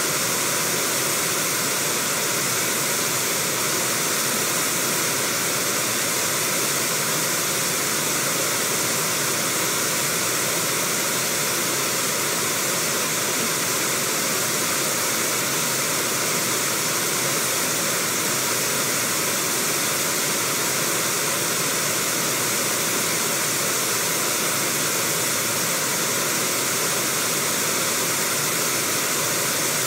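Fast river water rushing over rapids: a steady, unbroken roar of white water.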